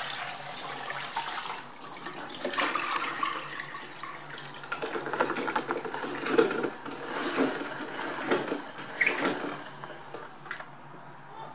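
Spin mop head sloshing in water in the clean-water compartment of its bucket, then spun in the pedal-driven wringer basket, with water splashing and spattering off it.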